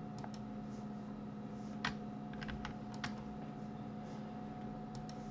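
Scattered sharp clicks of a computer mouse button and keyboard, a few at a time in small groups, over a steady low electrical hum.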